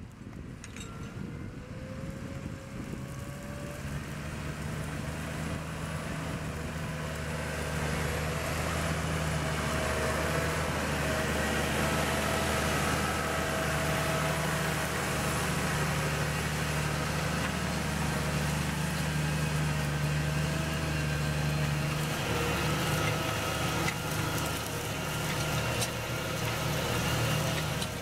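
New Holland T7.270 tractor's six-cylinder diesel engine pulling a reversible plough through stubble under load, a steady drone. It grows louder over the first several seconds, then holds.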